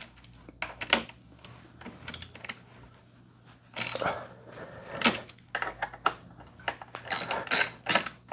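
Scattered clicks and clinks of hand tools and metal parts being handled at a motorcycle handlebar clamp, with a few short scraping, rustling stretches in the middle and near the end.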